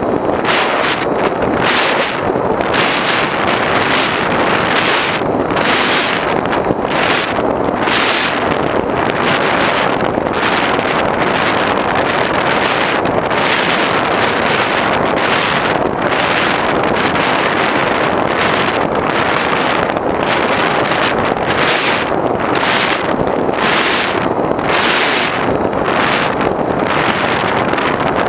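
Steady, loud rush of airflow over the GoPro's microphone on an X8 FPV model plane in flight, with no clear motor tone standing out.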